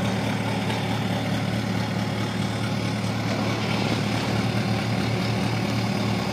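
Mobile crane's diesel engine running steadily while it holds a heavy steel mould on its hook, a low, even hum.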